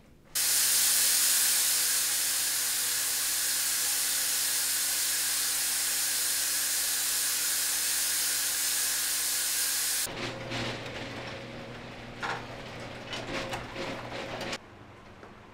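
Fog machine jetting fog with a loud, steady hiss over a low pump hum, cutting off suddenly about ten seconds in. A fainter hiss with a few clicks follows.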